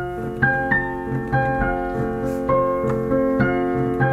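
Instrumental introduction of a children's song played on a piano-like keyboard: held chords under a melody of single notes struck at a steady pace.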